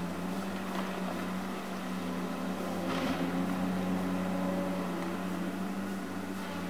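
Tigercat LX870C feller buncher's diesel engine running steadily under load as the machine swings its boom, with a brief rush of noise about three seconds in.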